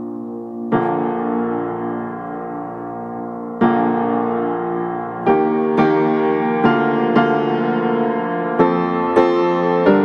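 Background piano music: slow chords, with notes struck more often in the second half.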